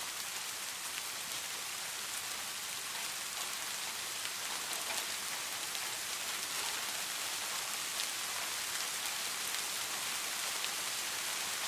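Steady rain falling on a surface, an even hiss of many fine drops with faint single drop ticks.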